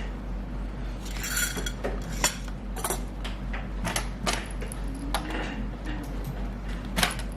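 Scattered light clicks and clinks of small hard objects being handled, with a short scrape about a second in, over a steady low hum.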